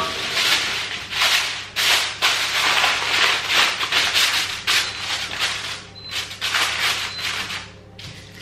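Aluminium kitchen foil crinkling as it is laid over a bowl and pressed down around the rim, a run of short scrunches that thin out near the end.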